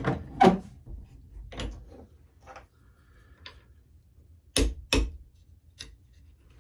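A small hammer tapping a steel pin punch to drive the ejector roll pin into an AR-10 bolt clamped in a vise. The taps are short and metallic and come at irregular intervals, with the two hardest close together about three-quarters of the way through.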